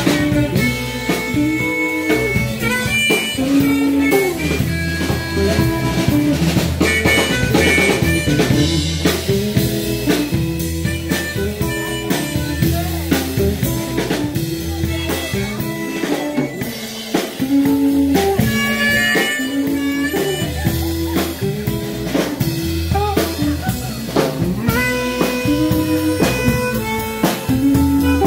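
Live blues band playing an instrumental stretch: amplified blues harmonica with held, bending notes over electric guitar, bass guitar and drum kit keeping a steady beat.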